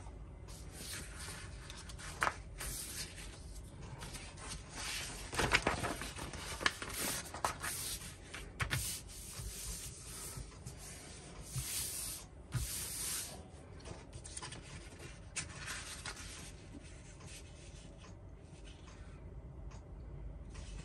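Paper instruction booklet rustling and sliding as it is unfolded and smoothed flat by hand on a cutting mat, in irregular swishes with a few louder crinkles.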